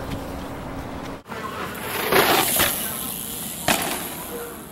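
BMX bike riding on pavement: a rush of tyre noise about two seconds in and a single sharp clack of the bike a little later, after which the sound fades out.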